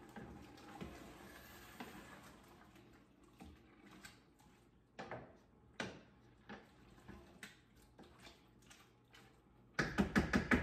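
Wooden spoon stirring in a metal stockpot, with scattered knocks and scrapes against the pot, then a quick burst of rapid clattering near the end.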